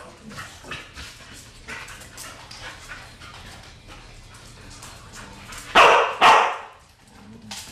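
American bulldog barking twice in quick succession near the end, with quieter scattered sounds before.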